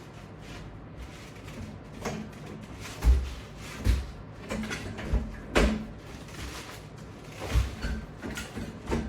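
Exercise equipment being handled: a series of irregular knocks and clunks, some with a low thud, as gear is moved and attachments are fitted.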